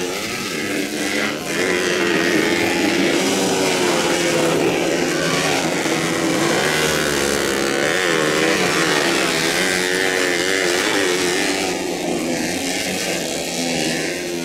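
Motocross dirt bike engines revving hard, the pitch rising and falling again and again as the throttle opens and closes.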